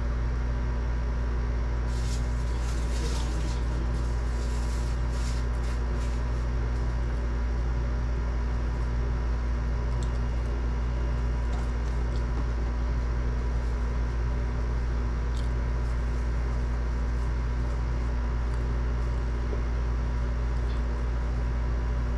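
Steady low mechanical hum with several constant tones layered over it, unchanging throughout. A cluster of faint clicks and rustles comes about two to six seconds in.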